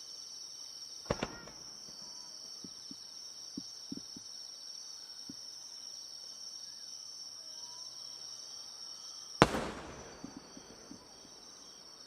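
Large aerial firework shells (shakudama) going off: a sharp double bang about a second in and a few faint pops, then a much louder boom with a rolling echo about three-quarters of the way through, followed by a few crackles. Crickets chirp steadily throughout.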